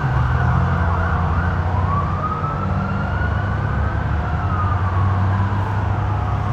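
Police siren wailing: it wavers quickly at first, then makes one slow wail that rises and falls, over a steady low rumble.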